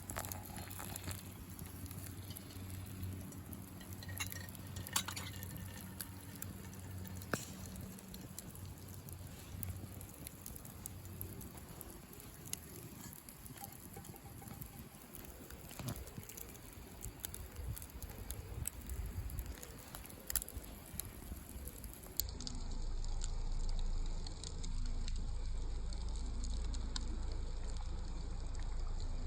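Wood campfire crackling, with scattered sharp pops over a faint steady hiss. Late on, the sound changes abruptly and a louder low rumble sets in.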